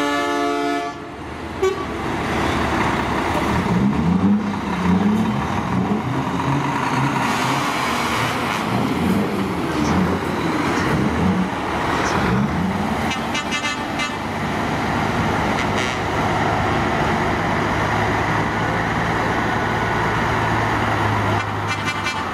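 American conventional semi trucks with open, straight-piped exhausts driving past. Their diesel engines rev with rising and falling pitch, then settle into a steady low rumble. An air horn sounds at the start and ends about a second in, and there are short horn toots again around the middle and near the end.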